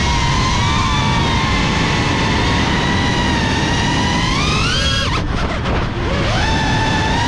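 GEPRC CineLog35 FPV cinewhoop's brushless motors and ducted propellers whining in flight. The pitch holds steady, climbs as the throttle is pushed about four and a half seconds in, drops away abruptly around five seconds as the throttle is cut, then rises back to a steady whine.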